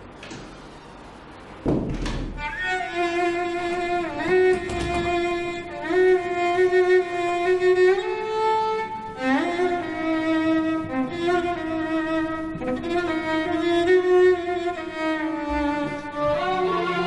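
Background score for a drama scene: a bowed-string melody, violin-like, with sliding notes over lower strings. It enters with a low hit about two seconds in, after a quieter start.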